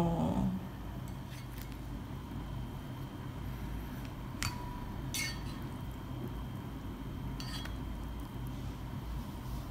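A few light clinks of chopsticks and tableware, about four separate taps spread out, one about halfway through ringing briefly, over a low steady hum.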